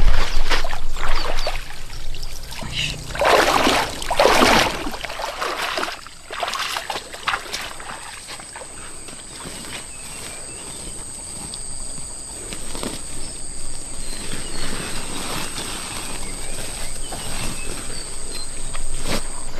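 Water splashing and sloshing, with a few loud splashes in the first few seconds. It then settles to quieter trickling under a steady high-pitched insect drone.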